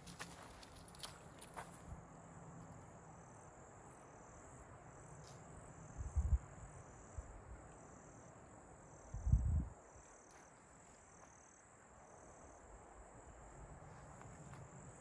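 Insects calling: a steady high-pitched buzz, with a second call just below it pulsing on and off about once a second. Two dull low thumps come about six and nine seconds in, the second the louder.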